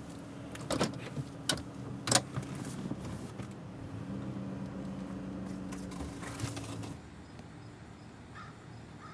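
Car running, heard from inside the cabin: a low steady hum with a few sharp clicks and knocks in the first couple of seconds. The hum grows stronger, then cuts out about seven seconds in, leaving only a faint quiet background.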